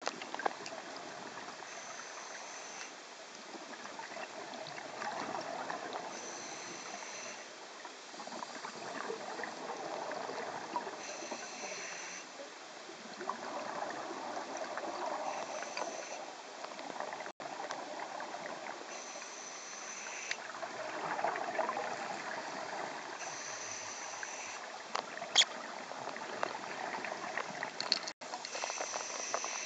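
Scuba diver breathing through a regulator underwater: a short hiss on each inhalation, about every four seconds, between bubbling rushes of exhaled air. One sharp click comes near the end.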